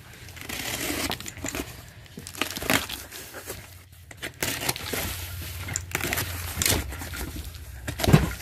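Utility knife blade slicing packing tape along a cardboard box, with repeated scraping and crackling strokes of blade, tape and cardboard. Near the end the cardboard flaps are pushed open with a loud thump.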